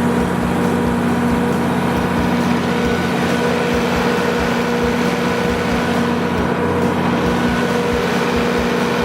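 John Deere inline six-cylinder turbocharged diesel engine of a Kohler 175 kW generator set running steadily at a constant speed, a steady drone with several held tones over it.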